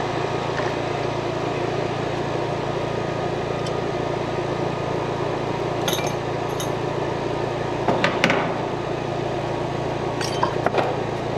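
A steady machine hum with hiss underneath a few light clicks and clinks of hand tools and wire being handled, the loudest about eight seconds in and a cluster near the end.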